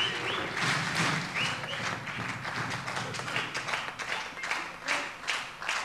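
Large indoor crowd applauding after a point, many hands clapping at once, thinning out somewhat near the end.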